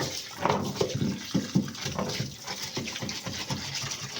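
Brush scrubbing wet mud and grime off washing-machine wash-tub parts, with water sloshing; quick, uneven strokes, about two to three a second.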